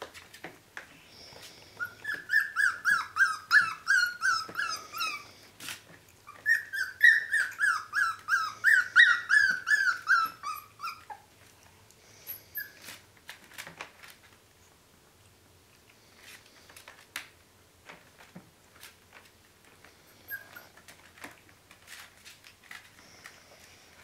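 Four-week-old heeler puppies squealing: two runs of quick, high-pitched yips, several a second, each lasting a few seconds and dropping slightly in pitch. After that come only faint scattered clicks as the puppies feed from the tray.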